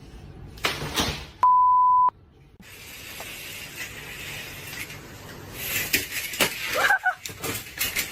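A single steady electronic bleep tone, about two-thirds of a second long, of the kind used to censor a word; it is preceded by a short noisy burst and followed by a steady hiss that turns into a run of sharp clicks and scuffling noise in the second half.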